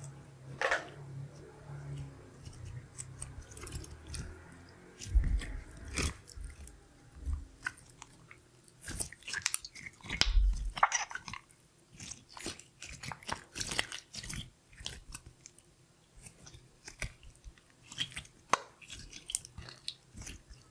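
Glitter slime being squished and pressed by hand: irregular sticky clicks and crackles, with a couple of low thumps about five and ten seconds in.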